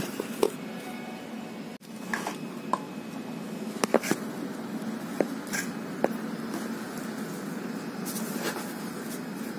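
Scattered light clicks and taps of hands handling craft items, over a steady low hum.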